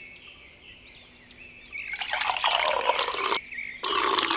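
Juice pouring from a glass jug into a drinking glass, two loud pours with a short break between them about three and a half seconds in. Faint high chirps before the pouring.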